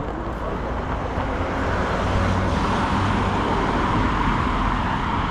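Road traffic: a motor vehicle driving past close by, its engine and tyre noise growing louder over the first couple of seconds and then holding steady.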